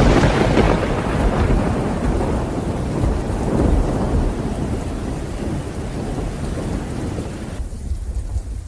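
A thunderclap cracks right at the start and rolls on as a long low rumble that slowly fades, over steady rain. Near the end the rain's hiss cuts out, leaving only a low rumble.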